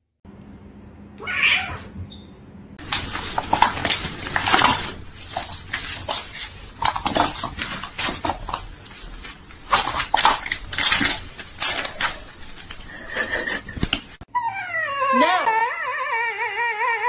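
A short high cry, then about eleven seconds of loud, harsh, noisy animal cries in bursts. In the last few seconds a husky in a cone howls in a long, wavering, pitched tone.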